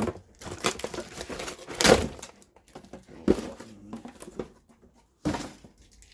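Packaging rustling and crinkling as grinder parts are unwrapped and handled, with a few sharp knocks of parts being set down.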